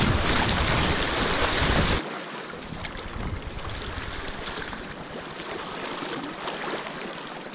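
Water rushing and splashing around a kayak as it is paddled through a river current, loud and rumbling with wind on the microphone at first, then dropping suddenly about two seconds in to quieter lapping and light paddle splashes.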